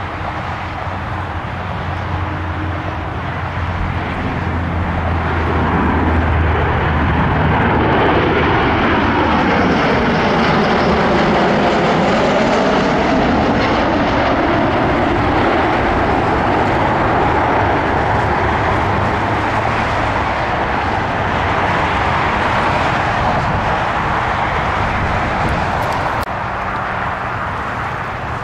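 Fixed-wing airplane's engines passing by. A steady engine rush swells about five seconds in and holds. A sweeping whoosh that dips and rises comes as the plane passes, then the noise eases near the end.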